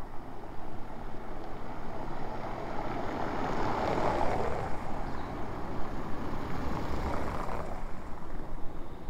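A vehicle passing by: road noise swells to a peak about four seconds in, then fades away over the next few seconds.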